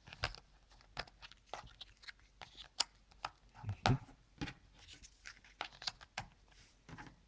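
Cardboard jigsaw puzzle pieces being handled and pressed into place in a puzzle book: irregular light clicks, taps and rustles, a slightly louder knock about four seconds in.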